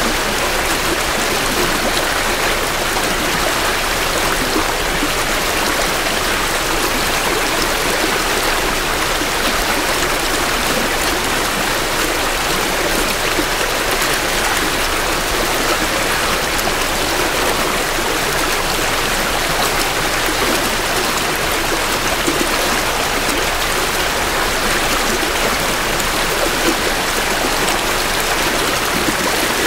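Creek water flowing steadily over rocks, a continuous rushing and babbling from a stream swollen with spring runoff, recorded close to the water's edge.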